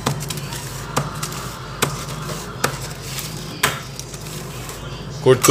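A pizza being cut: a cutting blade knocking down through the crust onto the surface beneath, in sharp single knocks about once a second, over a steady low hum.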